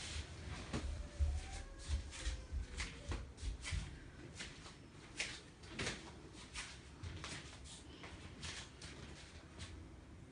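Irregular rustling and soft knocks of hands and cloth being handled, as the practitioner's hands feel along the recipient's back to locate the spine. The sounds are busier in the first few seconds and thin out later.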